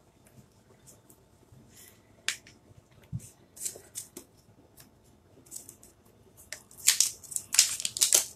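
Hands handling craft supplies on a tabletop: scattered light taps and rustles, including a cloth towel being laid out, with a run of louder rustling near the end.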